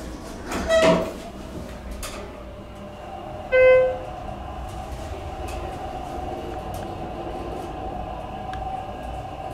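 Schindler 330A hydraulic elevator car travelling down, heard from inside the cab as a steady hum. A single short chime tone sounds about three and a half seconds in.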